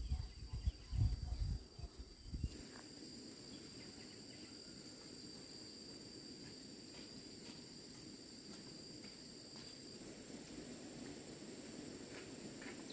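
Insects, crickets by their sound, trilling steadily at two high pitches; the lower one stops about ten seconds in. Loud low rumbling thumps cover the first couple of seconds.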